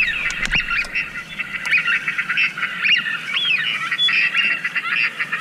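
A flock of waterfowl calling: many short, high calls overlapping in a steady chatter, with a single knock about half a second in.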